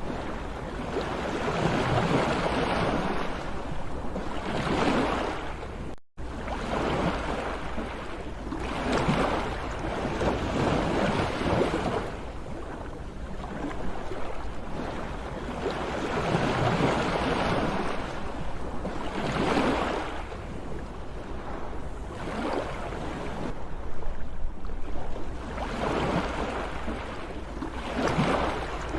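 Sea waves breaking and washing in, swelling and falling back every few seconds under a steady low rumble. The sound cuts out for a split second about six seconds in.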